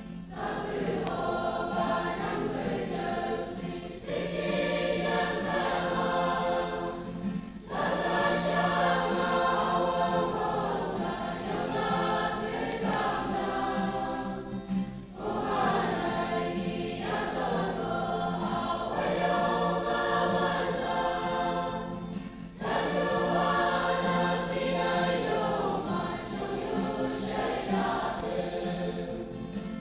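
Mixed church choir of women and men singing a gospel hymn in several parts, in sustained phrases broken by short pauses for breath every few seconds.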